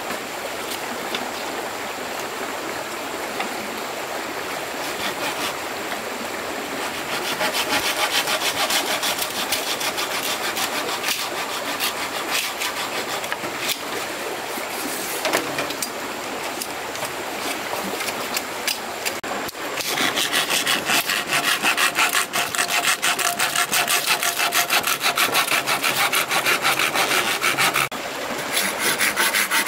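A hand tool rubbing back and forth on wood in quick, rhythmic strokes, like sawing or rasping. The strokes grow louder and harsher about two-thirds of the way in, pause briefly, then resume near the end.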